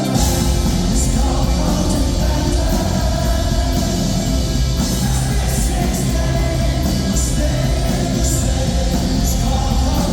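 Live rock band playing a song with a singer; the bass and drums kick in at the very start and carry on at full volume.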